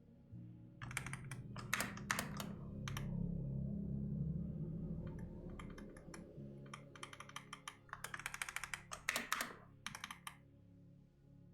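Typing on a computer keyboard in two bursts of rapid key clicks, the second longer than the first, over soft ambient background music.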